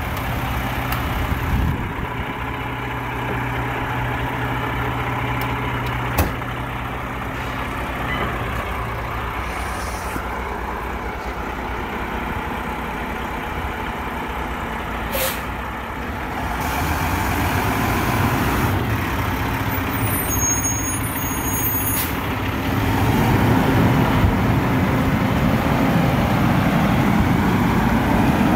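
Refuse truck engine running, steady at first, then growing louder in two steps through the second half, with one brief sharp sound about halfway.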